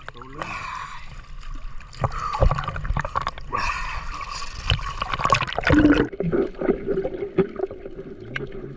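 Water splashing and trickling, with scattered knocks and clatters; from about six seconds in a faint steady hum sits underneath.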